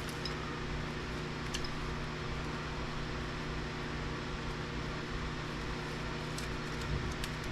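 A steady low machine hum, like a fan, with a few faint light clicks of small parts being handled.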